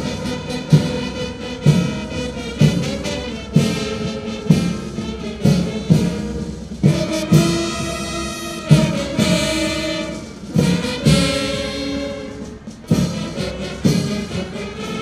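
Ceremonial brass band playing a march: sustained brass chords over a bass drum struck about once a second.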